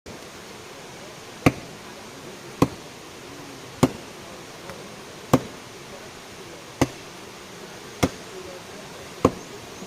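Seven sharp strikes, evenly spaced about one every second and a quarter, over a steady hiss.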